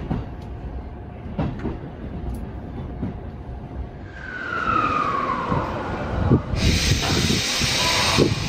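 E233-series electric commuter train running and slowing, heard from inside a car: a low rumble, with a whine that falls in pitch about four seconds in. A couple of seconds later the sound switches abruptly to a louder, brighter steady noise.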